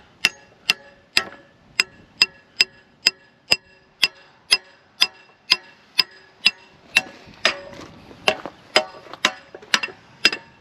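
Steady hammer blows on a steel pipe held against a mini excavator's thumb pivot pin, driving the pin out of its bracket: about two strikes a second, each with a short metallic ring, a little faster and less even after about seven seconds.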